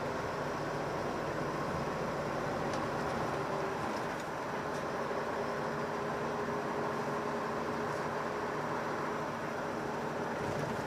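Hino Profia heavy truck's diesel engine running steadily on the road, with tyre and road noise, heard from the cab.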